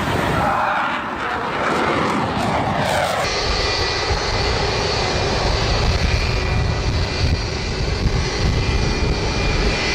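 Fixed-wing aircraft engine running. For the first three seconds its pitch falls as it passes; about three seconds in the sound changes abruptly to a steady engine noise with a high whine held on one note.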